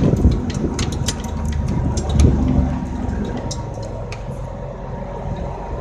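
A steel tie-down chain and its binder clinking and rattling in irregular sharp metal clicks as they are worked by hand to reseat a chain link that was not fully engaged. A low steady rumble runs under the clicks and swells briefly about two seconds in.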